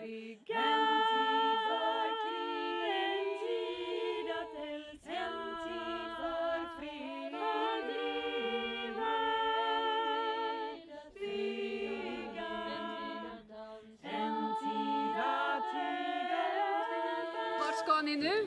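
A small group of women singing a cappella in harmony, several held notes together in phrases broken by short pauses.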